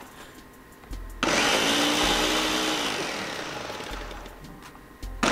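Ninja blender crushing frozen fruit and spinach on its frozen-drinks setting, running in pulses: it cuts in suddenly about a second in, runs loudly with its pitch sagging a little as it fades, drops off briefly near the end and starts again. The speaker calls it so loud.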